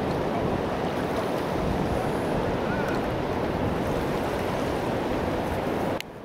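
Steady wind noise buffeting the camera microphone, mixed with the wash of surf at the shore, with no rhythm or pitch to it. It cuts off abruptly with a click near the end, leaving a much quieter hiss.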